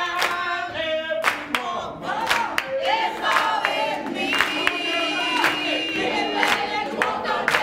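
A group of people singing a song together while clapping along by hand, with one voice holding a long note in the middle.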